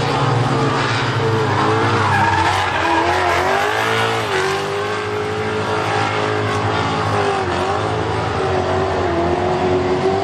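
ZD Racing 9116 S RC truck's electric motor whining as it is driven, the pitch rising and falling with the throttle, over the hiss of its tyres churning dirt.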